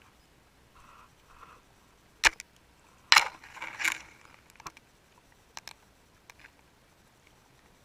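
Sharp knocks and clicks picked up by an underwater camera. There is a single loud one about two seconds in and a loud cluster a second later, followed by a few fainter ticks.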